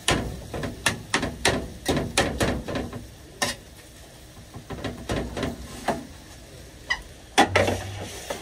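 A metal spatula chopping and scraping through sausage mince in a metal tray: irregular taps and scrapes, a few a second, with a louder clatter near the end.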